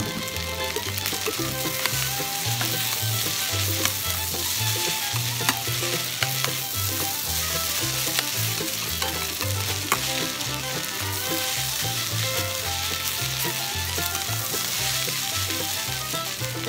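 Fried rice sizzling steadily in a stainless steel pan while a metal spatula stirs and scrapes it, with a few sharp taps of the spatula on the pan. A low bass line of background music runs underneath.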